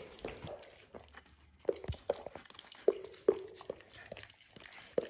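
German Shorthaired Pointer eating a cooked steak, chewing and tearing at the meat in irregular bites. The chewing grows louder and quicker from about a second and a half in.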